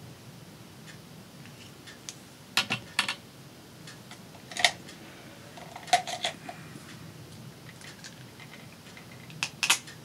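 Small hard clicks and taps from craft supplies being handled on a tabletop, in four short clusters.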